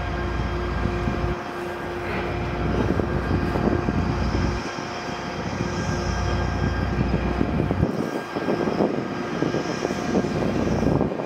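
A diesel-hauled train passing: a steady engine drone with rumbling and clattering wheel and rail noise.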